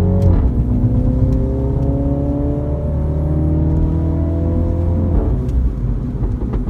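2017 Mini Cooper JCW's 2.0-litre turbocharged four-cylinder engine and exhaust accelerating, heard from inside the cabin. The engine note climbs steadily in pitch and drops twice, just after the start and about five seconds in, as the car shifts up a gear. After the second shift it runs on at a lower, rougher note.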